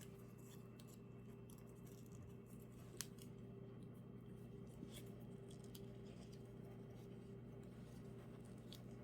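Quiet room tone: a steady low hum with scattered faint clicks and one sharper click about three seconds in.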